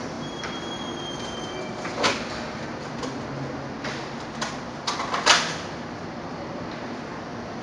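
A squirrel rummaging inside a lidded trash can, knocking against it with several sharp knocks and rattles; the loudest comes a little after five seconds in. A steady background hum runs underneath.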